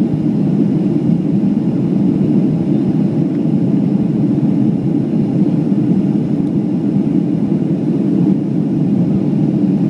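Boeing 737-500 heard from inside the passenger cabin in flight: its CFM56-3 jet engines and the airflow make a steady, low cabin rumble that stays even throughout.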